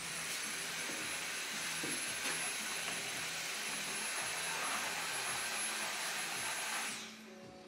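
An electric fan motor, like a vacuum cleaner or blower, switched on and running steadily: a rushing of air with a thin high whine. It cuts off suddenly about seven seconds in.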